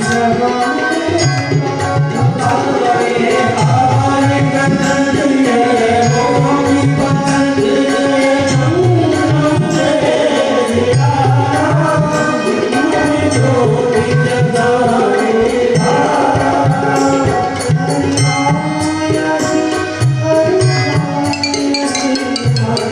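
Hindu devotional aarti music with tabla drumming under a sustained melody, playing steadily.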